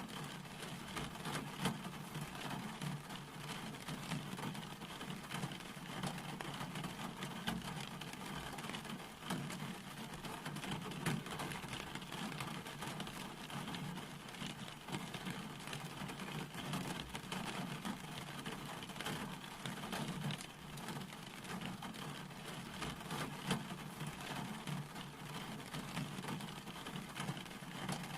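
Steady rain falling, a dense even hiss full of small drop ticks.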